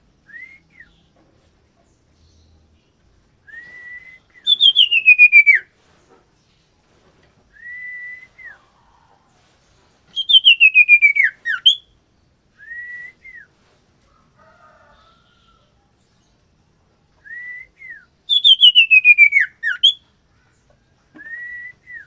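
Common iora (cipoh) whistling: short, soft upslurred whistle notes alternate with loud, trilled whistles that slide down in pitch for over a second, three of them, each ending with a short flick.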